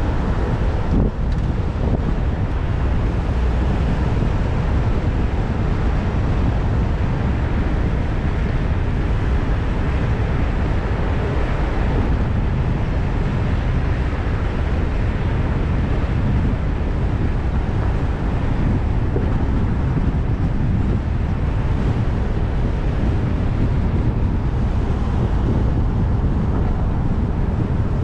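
Steady low rumble of wind on the microphone mixed with city street traffic noise.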